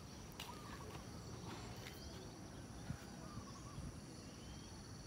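Quiet rural outdoor ambience: insects trilling steadily in high, even tones, with a few faint short chirps and a faint knock about three seconds in.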